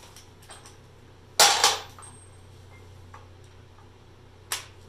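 Sharp metal clanks of a steel socket and air impact wrench being handled: two loud clanks about a second and a half in, a few light clicks, then another clank near the end.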